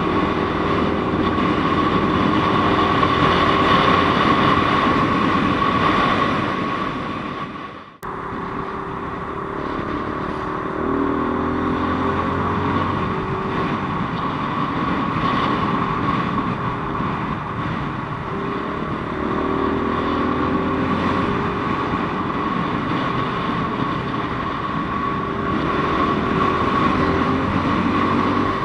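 QJMotor SRK300S motorcycle engine running, its pitch shifting up and down. Near eight seconds in, the sound drops away sharply and picks up again.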